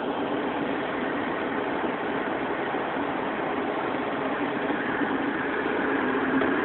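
Car running, heard from inside the cabin: a steady engine hum under a haze of road or air noise, growing slightly louder over the last couple of seconds.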